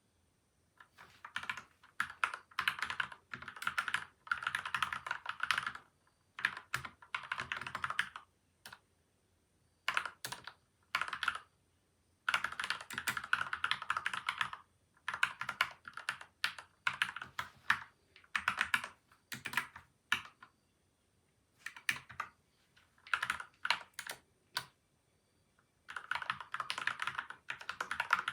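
Typing on a PCL87 mechanical keyboard with lubed, foam-and-tape-modded Gateron milky white and Outemu yellow switches. The keystrokes come in quick runs of a second or few, broken by short pauses.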